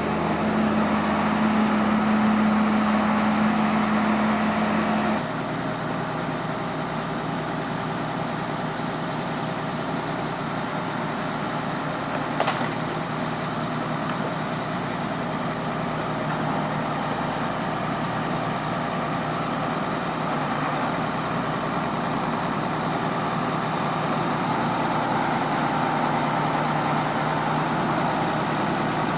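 A motor vehicle engine running steadily, its sound changing abruptly about five seconds in, with a single sharp click near the middle.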